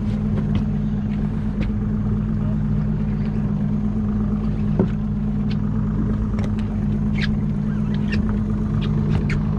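Boat's engine running with a steady low hum, with scattered light clicks and knocks on top.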